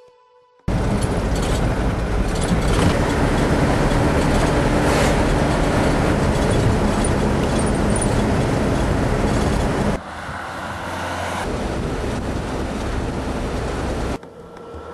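A moving vehicle's road noise, a steady rumble of engine, tyres and wind, starting abruptly about half a second in. It drops and changes character suddenly about two-thirds of the way through and again near the end.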